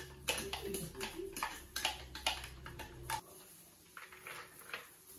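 Irregular plastic clicks and scrapes as a hand food chopper is tapped and scraped to empty chopped carrot into a plastic bowl. The clicks come thickly for about three seconds, then thin out to a few faint ones.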